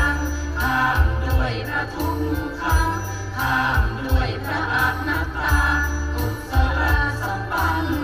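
Background music with a steady beat and a heavy bass line.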